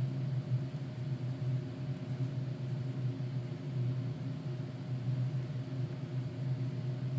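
Steady low mechanical hum with a few steady higher tones over it, unchanging throughout.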